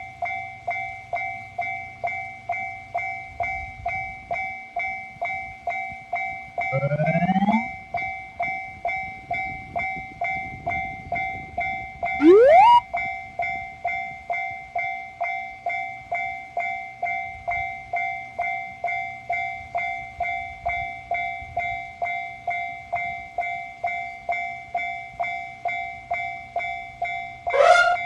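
Japanese railroad crossing warning bell ringing kan-kan in a steady rhythm of about two and a half strikes a second, each strike ringing and fading. Rising whistle-like glides cut across it three times, the loudest about twelve seconds in.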